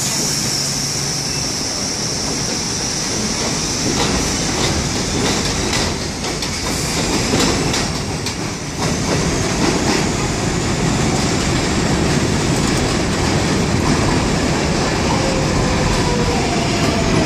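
New York City subway trains on an elevated steel structure. First an R62A train runs along the far track with a high whine and wheels clacking over rail joints. Then, over the last few seconds, an R142A train pulls into the near platform, its motors giving falling whines as it slows.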